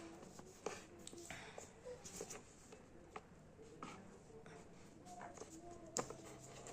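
Faint scratching and light taps of writing by hand.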